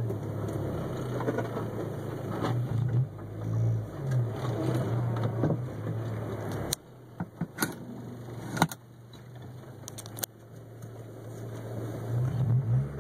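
1991 Honda CR-X Si's D16A6 four-cylinder engine running under way, its pitch rising and falling as it pulls. A little past halfway the engine sound cuts out suddenly, a few sharp clicks and knocks follow, and the engine comes back in near the end.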